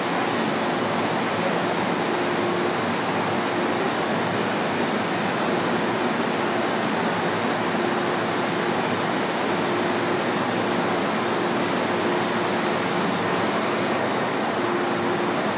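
Steady whirring hum of an MTR M-Train standing at an underground platform, its air-conditioning and auxiliary equipment running, with a faint low tone that comes and goes.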